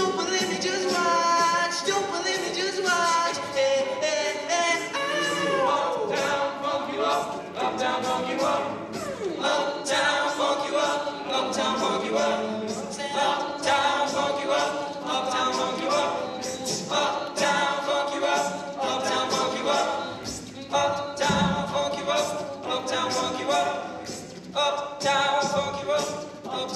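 A cappella group of male voices singing in close harmony to a steady beat.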